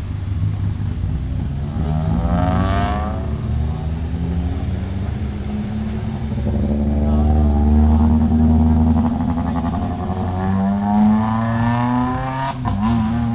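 Several race cars' engines passing one after another through a hairpin at modest speed, each revving up and falling back as it drives out of the turn. A few sharp clicks come near the end.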